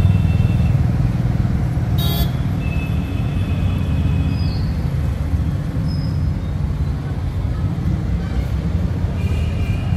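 Street traffic: motorcycle and car engines running past on the road, with short horn toots, the sharpest about two seconds in.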